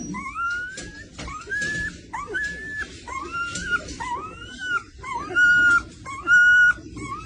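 A dog whining in a long run of high-pitched cries, each one rising and then held briefly, about one a second, growing louder past the middle.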